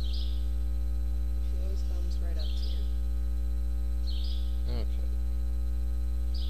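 Steady electrical mains hum, a low buzz with a ladder of even overtones, with a few faint high chirps now and then.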